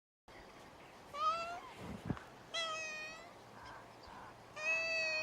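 Domestic cat meowing three times, the last call held longest, with a short knock between the first two calls.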